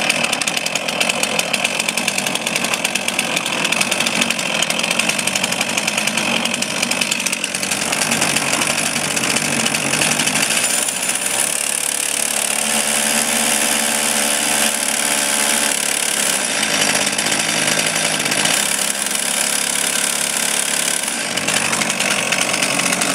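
Stihl chainsaw powerhead rigged as a boat motor, a two-stroke engine, running hard while driving the boat in reverse. It catches at the very start, and its speed shifts a few times, with a steadier note between about 11 and 16 seconds in.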